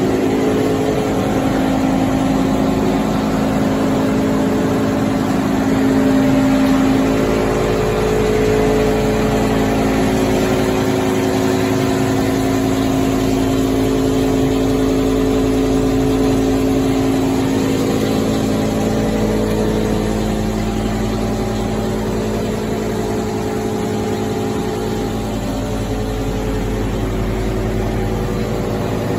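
QD-600SA copper wire granulator recycling line running steadily: its motors, vibrating separator table and conveyor make a constant mechanical drone with several steady hum tones.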